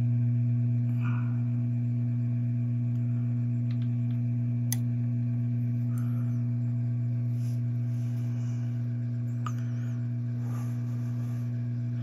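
Hot air rework station running at high temperature and airflow from below the board, a steady electrical hum, while the solder under a new HDMI port is reflowed. A faint click sounds about five seconds in.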